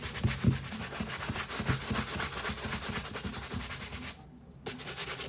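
Bristle brush scrubbing a sneaker's sides with foamy cleaning solution in rapid back-and-forth strokes, several a second, stopping about four seconds in.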